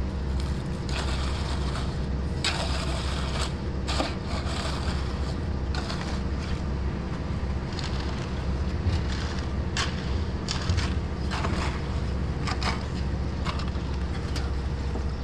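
Shovels scraping and knocking through wet concrete on a rebar roof slab, in irregular short strokes, over a steady low machine hum.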